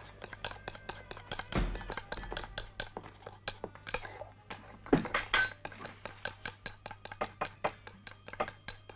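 Kitchen utensil clinking against a bowl as eggs are beaten, about three clinks a second, with two louder knocks, one near the start and one about halfway through.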